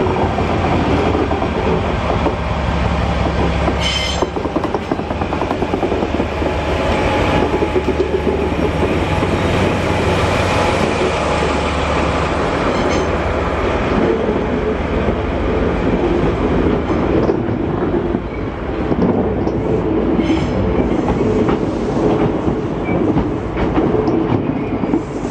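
Train of new Sotetsu 12000 series cars rolling slowly over a level crossing, a steady low rumble with wheels clacking on the rail joints. Short high wheel squeals come about four seconds in and again near twenty seconds.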